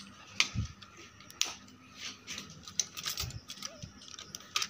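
Scattered sharp clicks, about half a dozen, with a couple of soft low thumps between them, over a faint steady hum.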